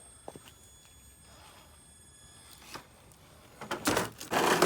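Traxxas TRX4 High Trail RC crawler's electric drive in low gear, giving a steady high-pitched whine that starts with a click. Near the end comes a loud, noisy rush of sound as the truck works over an obstacle.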